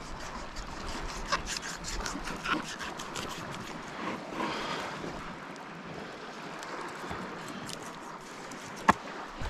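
Scattered light scrapes and taps from a pink snapper being handled on a plastic cutting board, over a steady hiss of wind on the microphone. One sharp click comes near the end.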